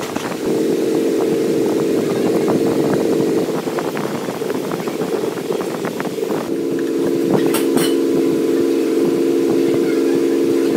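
Restored three-phase electric motor running with a steady electrical hum. About two-thirds of the way in, the hum shifts to a cleaner, steadier tone, with a few sharp clicks just after.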